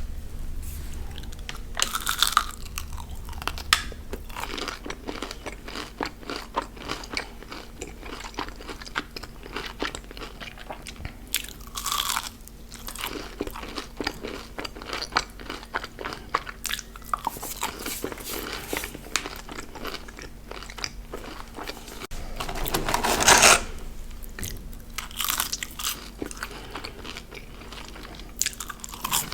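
Close-miked chewing and crunching of fast food, a steady run of small crunchy clicks with a few louder crunches.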